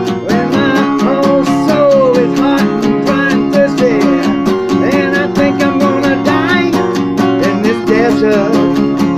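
Acoustic guitar strummed in a steady, quick rhythm, with a melody that slides and wavers in pitch over the chords from just after the start.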